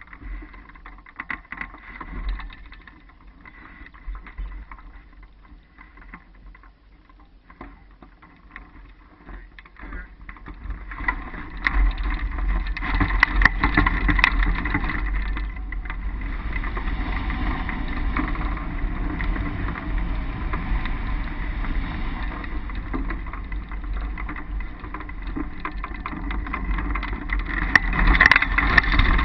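Wind rushing over the microphone of a camera mounted on a hang glider. It is quieter, with scattered knocks, for the first ten seconds or so. From about eleven seconds in it becomes a loud, steady low rush as the glider gathers airspeed in flight, and it swells again near the end.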